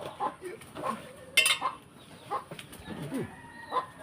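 Chickens clucking in short, scattered calls, with one sharp clack about one and a half seconds in.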